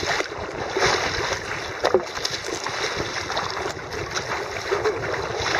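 Sea water splashing and rushing along a sea kayak's hull as the bow cuts through choppy waves, swelling and fading in surges.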